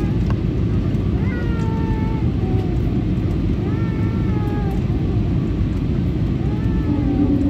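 Steady airliner cabin noise from the engines and airflow during the descent, with a voice in the cabin making three drawn-out calls that slide up and down in pitch. A steady low hum comes in near the end.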